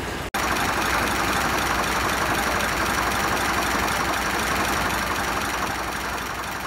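Gardner diesel engine in a narrowboat's engine room running at idle, a steady beat of firing strokes under a dense mechanical clatter.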